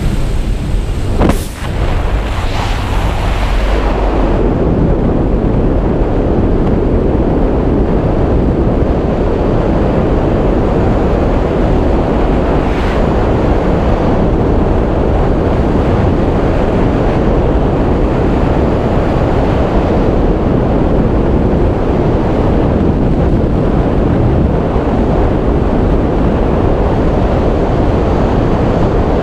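Jump-plane engine drone and rushing air at the open door for the first few seconds as skydivers exit, then a loud, steady rush of freefall wind buffeting the camera's microphone.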